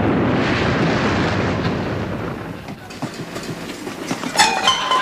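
Studio audience laughing and applauding in a loud, dense wash of sound that dies away about halfway through.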